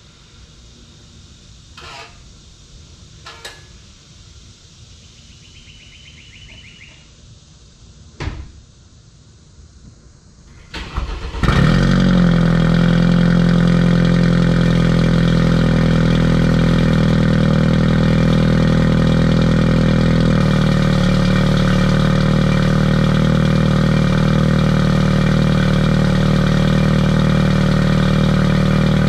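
BMW 428i Gran Coupe's N20 2.0-litre turbocharged four-cylinder started at the tailpipes about eleven seconds in: a brief crank, a quick flare, then a loud steady idle through its DPW exhaust cutout setup, the idle note shifting slightly about twenty seconds in. Before the start there are only a few faint clicks.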